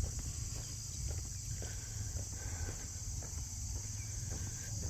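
Steady high-pitched drone of an insect chorus, such as crickets, over a low rumble on the microphone, with faint crunching footsteps on a gravel road.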